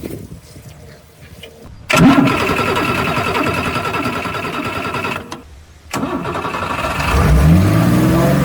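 Mercedes Unimog's OM352 six-cylinder diesel engine running, starting suddenly about two seconds in and breaking off briefly around five seconds. Near the end its pitch rises as it revs up.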